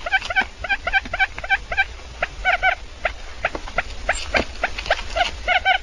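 Quail calling: many short chirping calls, several a second, overlapping as from a group of birds, over a steady low hum.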